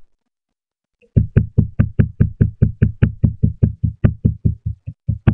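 Rapid, even knocking, about five knocks a second, starting about a second in.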